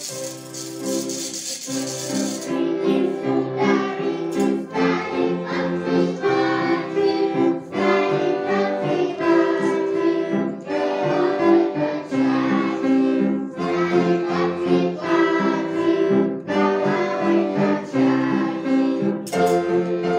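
Accordion playing a Russian folk song tune, with a group of young children singing along. Hand rattles and bells shake over the first couple of seconds and again briefly near the end.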